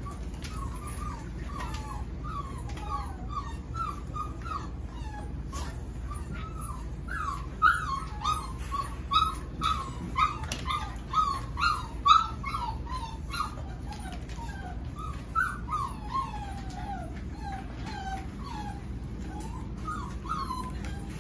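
Seven-week-old golden retriever puppies whimpering and yipping: a steady string of short, high whines several a second, most frequent through the middle.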